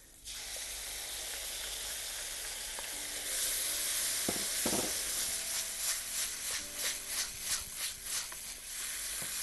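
Tomato purée sizzling in hot rapeseed oil in a pan. The sizzle starts suddenly and grows louder about three seconds in. In the second half a spoon stirs it in quick, even strokes, about three a second.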